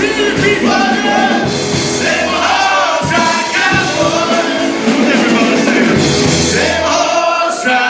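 A live country-rock band playing with a sung lead vocal over drums and amplified instruments.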